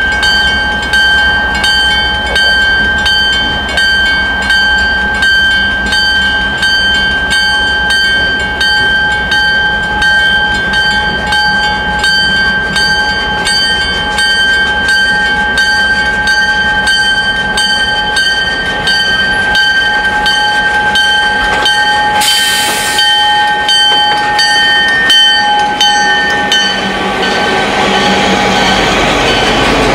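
Level-crossing warning bell ringing in steady, quick strikes as a CN GP38-2 diesel locomotive approaches. A brief hiss comes about 22 seconds in. Near the end the bell fades and the locomotive's EMD 16-cylinder two-stroke diesel grows loud as it passes close by.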